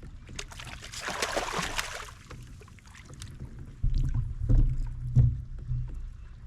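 Sounds of a kayak being handled on the water: a short rushing hiss with small clicks, then a run of low bumps and knocks through the hull.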